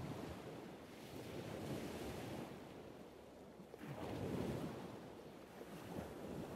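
A rushing noise that swells and ebbs like surf washing in, with two surges, the second and louder one about four seconds in.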